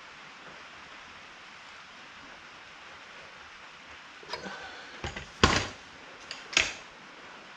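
Old Walmart chainsaw's recoil starter cord being yanked several times in quick succession in the second half, each pull a short sharp scraping stroke. The engine does not fire: the long-stored saw is failing to start on full choke, and the owner blames the spark plug.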